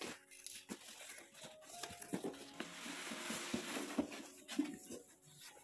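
Cardboard carton being opened: scissors snipping through packing tape, with clicks and rustles of cardboard. About two and a half seconds in comes a longer rustle as the foam-wrapped package slides out of the box.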